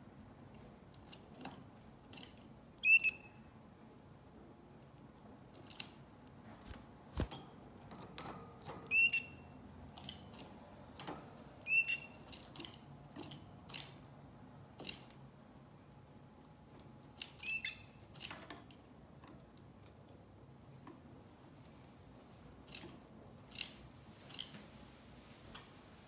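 Canary giving four short chirped call notes, spaced several seconds apart, among scattered soft clicks and rustles of the bird moving about its nest and cage.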